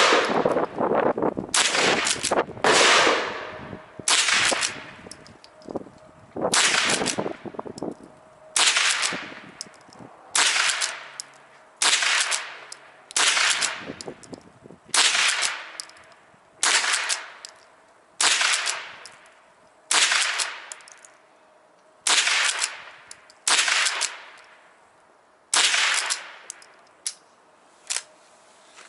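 Henry pump-action .22 LR rifle firing CCI Velocitor rounds in a steady string of shots, roughly one every one and a half seconds, the action pumped between shots. Each report is sharp, with a short echoing tail.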